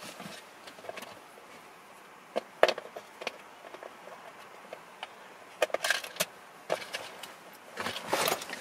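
Sporadic clicks and knocks of plastic steering-column trim and shifter parts being handled and snapped back into place, with a denser rustle of handling near the end.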